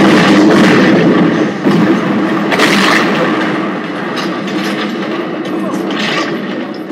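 Film sound effect of a boat exploding: a loud blast and fiery rumble, a second burst about two and a half seconds in, then a slow dying down.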